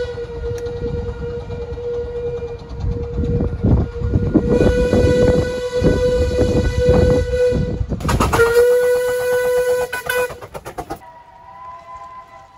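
Steam locomotive whistle on the 15-inch-gauge Romney, Hythe & Dymchurch Railway, held as one long steady single-note blast for about ten seconds. Under it come rhythmic steam exhaust beats that grow louder, and near the end a burst of loud steam hiss. After that, a different, higher-pitched whistle sounds more faintly.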